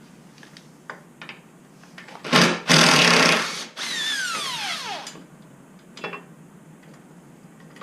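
A handheld power drill/driver runs in two short loud bursts, then its whine falls steadily in pitch as the motor spins down. A few light clicks of handling before and after.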